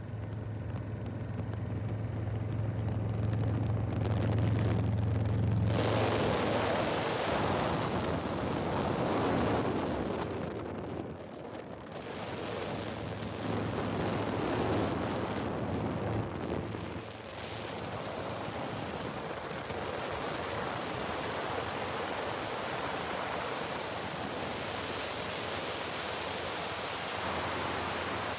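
Steady rushing wind noise that swells and dips, with a low, steady drone that is strongest for the first six seconds.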